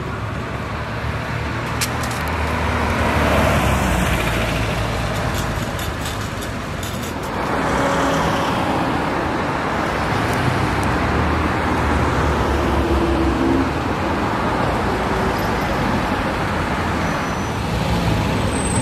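Classic sports cars driving past one after another at low speed, engines and exhaust swelling as each one nears: one about three seconds in, then a louder one from about seven seconds in.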